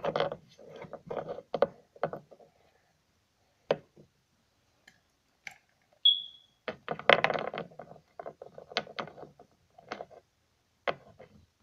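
Handling noise from plastic Littlest Pet Shop figurines being moved about by hand on a hard floor: scattered clicks, taps and scraping in clusters with short pauses. A brief high chirp sounds once about six seconds in.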